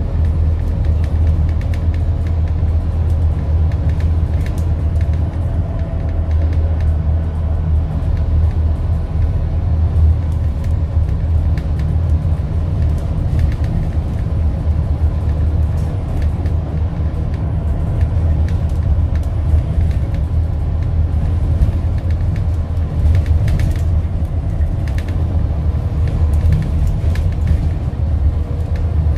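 Scania N230UD double-decker bus's diesel engine running with a steady low rumble, holding an even note with no sharp revving or stops.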